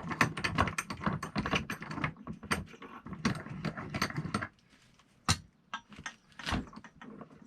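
Ratcheting wrench clicking rapidly as it turns the top nut onto a shock absorber's rod, for about four and a half seconds. It is followed by a few separate clicks and knocks of metal.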